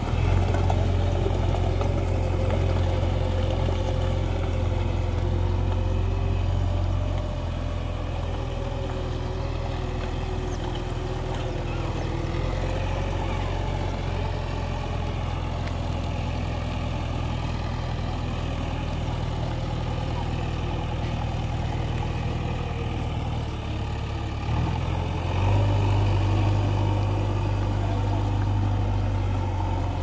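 JCB backhoe loader's diesel engine running steadily as the machine works through shallow floodwater. The engine is louder for the first several seconds, eases off, and picks up again about 25 seconds in.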